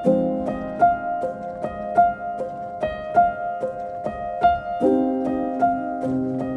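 Piano music: a repeating pattern of single notes, a few a second, over held chords that change about two-thirds of the way through.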